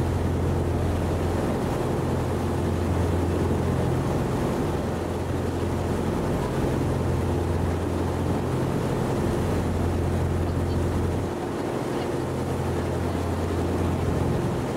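Steady low drone of a boat's engine, several constant hum tones under a rush of water and air noise; the deepest hum drops away briefly about eleven seconds in.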